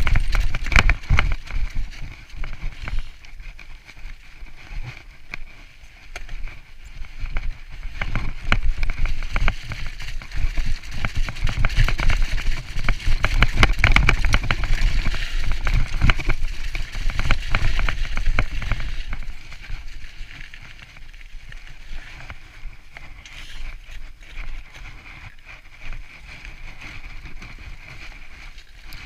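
Mountain bike descending a wet, slushy track at speed: tyres hissing through slush and grit, the bike rattling and clattering over bumps, over a low rumble. It grows quieter for the last several seconds as the bike slows.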